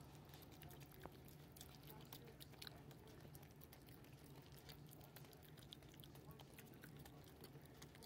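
Faint wet chewing and lip-smacking of a raccoon eating soft food from a spoon: many quick, irregular little clicks.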